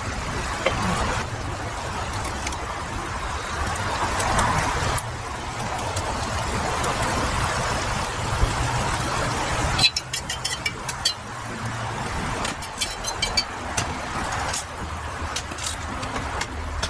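Rice and broth for plov simmering in a cast-iron kazan over a fire: a steady rumbling hiss. After about ten seconds the sound drops a little, and scattered sharp crackles and light scrapes follow as a stick is worked into the rice.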